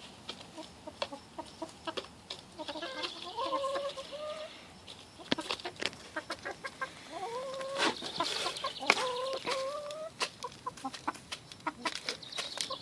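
A chicken making soft, wavering trilling calls in two runs, over many short sharp clicks.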